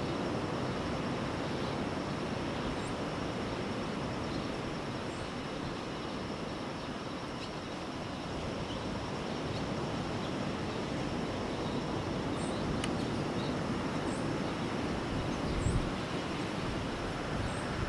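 Steady rushing noise of ocean surf and wind, with faint short high bird chirps scattered through it.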